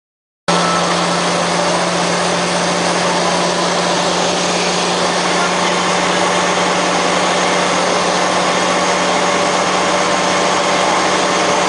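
Freightliner truck's diesel engine running steadily under heavy load while hauling a skidder: a constant drone with a strong low hum and no change in revs. The sound cuts in abruptly about half a second in.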